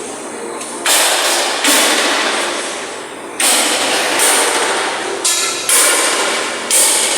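Hammer striking steel in a fabrication shop, about six irregular blows roughly a second apart, each ringing and echoing as it fades.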